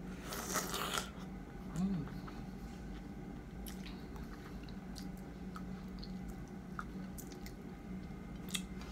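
A person bites into a small 'baby mango' fruit, skin and all, with a crunchy, wet bite in the first second. Quiet chewing with faint scattered mouth clicks follows, with a short low hum near two seconds.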